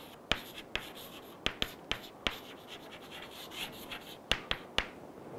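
Chalk writing on a chalkboard: a string of sharp taps and short scratches as the letters go on, irregularly spaced and with quiet gaps between them.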